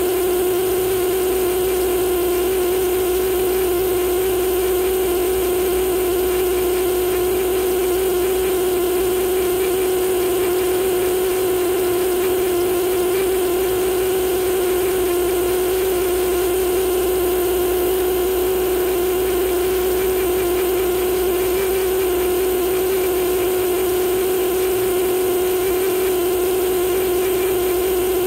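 Pneumatic air scribe buzzing steadily at one pitch as its needle stylus chips shale matrix away from fossil fish teeth.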